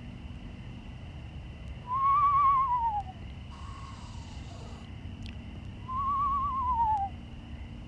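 Two loud, quavering whistled calls, about four seconds apart, each rising slightly and then sliding down in pitch: the descending whinny of a screech owl. A faint rasping hiss comes between them.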